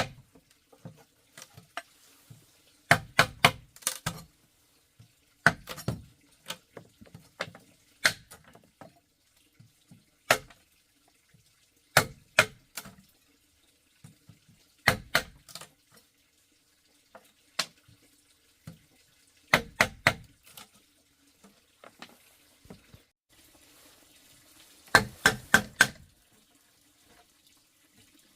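Short clusters of sharp knocks or taps, three to five in quick succession, repeating every couple of seconds with pauses between.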